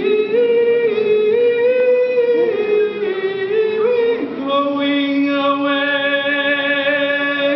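Choir singing together, stepping through several notes and then holding one long sustained chord from about halfway through.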